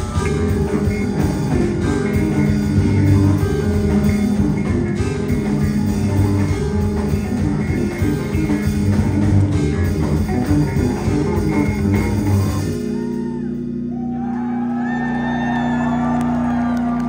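Live instrumental math-rock band of bass, guitar and drums playing the end of a song. The full band stops abruptly about thirteen seconds in, leaving a held low note ringing while the crowd starts cheering.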